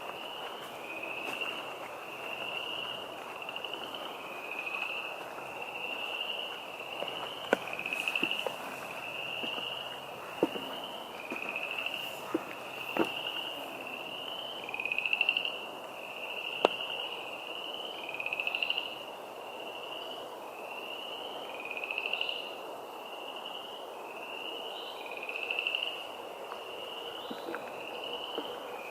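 A chorus of frogs calling from a wetland: short high calls follow one another about once a second without a break. A few sharp clicks stand out now and then.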